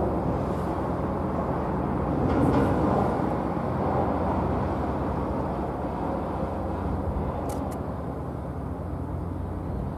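Steady low engine drone under a rushing noise, swelling briefly about two to three seconds in.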